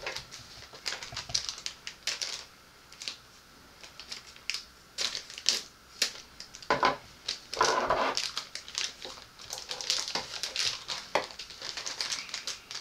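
Small printed blind-box packets and plastic parts bags being torn open and crinkled by hand: an uneven run of rustles and crackles, loudest about seven to eight seconds in.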